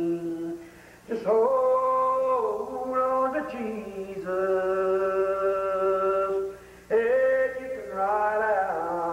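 A man singing solo in a slow, drawn-out style, holding long notes that bend and slide in pitch, with short breaks for breath about a second in and again near seven seconds.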